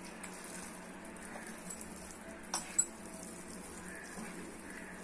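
A hand mixing cooked rice with tamarind pulp in a metal pot: faint sounds of the rice being pressed and turned, with two sharp clinks about halfway through.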